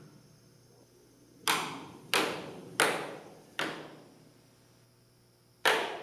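Spray foam insulation popping and cracking as it pulls away from a metal Quonset hut roof: five sharp cracks at uneven intervals, each ringing briefly, the last near the end the loudest. The foam has contracted after expanding and is separating from the metal, leaving a gap.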